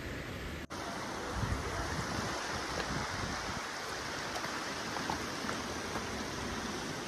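Steady rain falling, an even hiss with a few faint drop ticks, broken by a brief dropout just under a second in.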